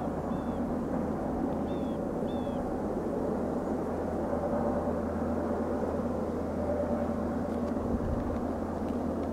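Freight train rolling past with a steady low drone and rumble. A few short high chirps come in the first few seconds.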